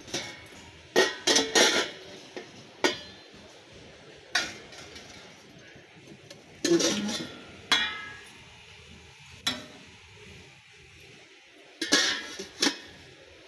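Stainless steel kitchen utensils and wire baskets clinking and clattering as they are handled on a shop display rack: a series of sharp metal clinks at irregular intervals, loudest about a second in and again near the end.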